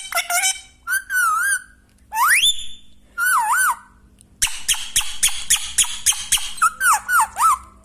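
Pet parrot whistling and chattering: wavering whistled calls, a clean rising whistle about two seconds in, then a rapid run of clicking chatter with more warbled whistles from about halfway through.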